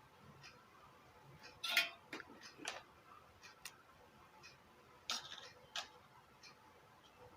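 Scattered small clicks and taps from hand tools handling the speaker's wiring and circuit board during a repair. The two loudest are about two seconds and five seconds in.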